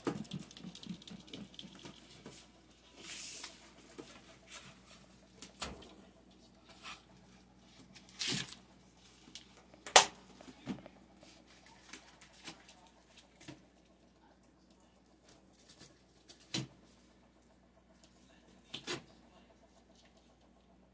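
Terrier puppies playing: scattered scuffles, light taps and clicks from paws and small bodies moving about, with one sharp click about ten seconds in the loudest sound.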